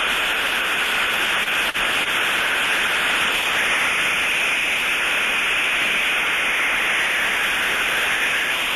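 Thermodynamic disc steam trap that has failed open, heard through an ultrasonic detector: a loud, steady, unbroken hiss of straight blow-through discharge. There is no on-off cycling in it, which is the sign of a trap failed in the open position.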